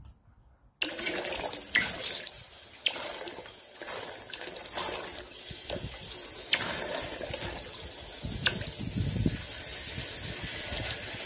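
Molten copper poured from a crucible into a pot of water, sizzling and hissing as it quenches, with occasional sharp cracks and pops. The sound starts abruptly about a second in.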